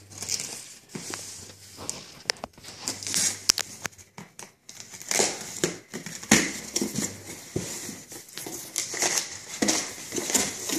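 Cardboard shipping box being torn open by hand, its flaps pulled back with irregular rips and clicks, then plastic packaging crinkling as the bagged parts inside are handled.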